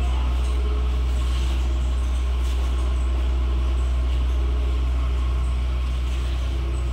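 A steady, loud low hum of running machinery, with a faint hiss above it.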